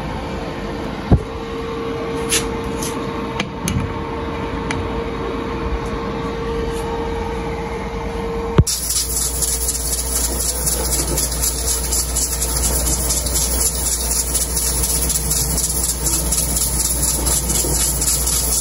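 Fan-assisted wood-burning stove running with its fire lit: a steady hum from the blower with a few light clicks. About halfway through it changes abruptly to a fuller, deeper rush with more hiss.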